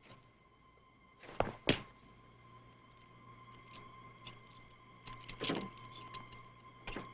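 Foley sound effects made with props: two sharp knocks about a second and a half in, then a run of lighter clicks, taps and rattles, with a louder, noisier hit about five and a half seconds in.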